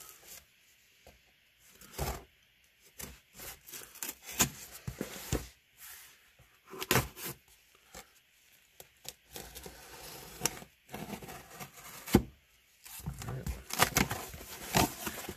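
A folding knife slitting the packing tape on a cardboard box, then the taped cardboard flaps being pulled and pried open: irregular scrapes, rips and taps on the cardboard.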